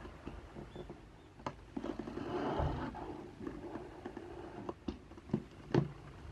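Utility knife slitting packing tape along a cardboard box's seam, a scratchy rasp of about a second near two seconds in. It is followed by a few sharp knocks and crackles of cardboard as the flaps are pulled open.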